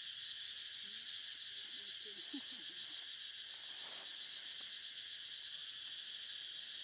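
Steady high-pitched insect chorus, a continuous buzzing drone with a fast even pulse.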